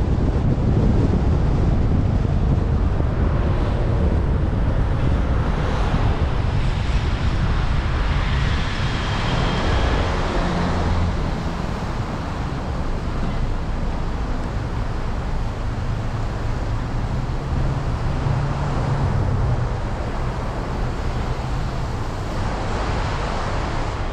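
Wind and road noise from a Kia Cerato being driven in traffic: a steady low rumble with wind buffeting the microphone, which eases a little about halfway through as the car slows to a stop.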